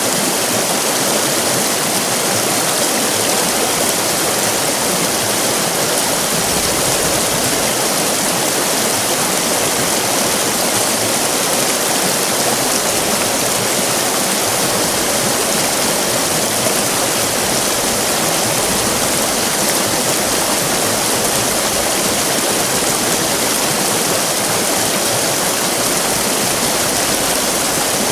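River rapids: fast-flowing water rushing and splashing over rocks in a steady, loud, unbroken roar.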